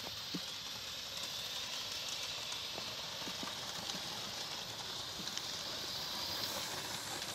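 A 16mm-scale live steam locomotive running with a train of wagons: a steady hiss of steam exhaust with light clicking of the wheels on the track.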